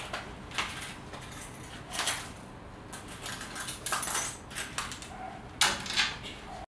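Coins clinking as they are taken from a wallet and fed into the coin slot of a coin-operated laundromat dryer: sharp metallic clinks a second or two apart, with a quick cluster near the end.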